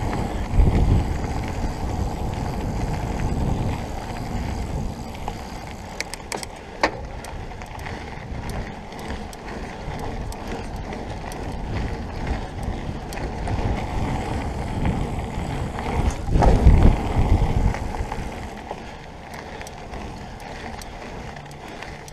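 Mountain bike rolling fast down a dirt forest single track: steady tyre and trail noise mixed with wind rush on the bike-mounted microphone. It surges louder just after the start and again about sixteen seconds in, with a few sharp clicks from the bike around six to seven seconds in.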